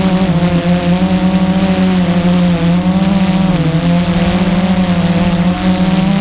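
Blade 350 QX2 quadcopter's four brushless motors and propellers buzzing steadily as it hovers, heard close up from the camera on board. Its pitch wavers slightly as the motors trim their speed.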